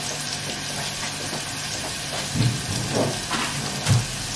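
Food frying in a pan with a steady sizzling hiss. A few dull knocks come in the second half as a shrink-wrapped drinks pack is handled and put away.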